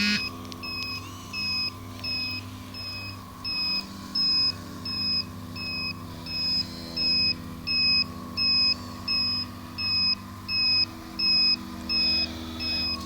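Reversing alarm of an RC construction machine beeping steadily, one high beep about every two-thirds of a second, over the steady hum of the model's engine sound.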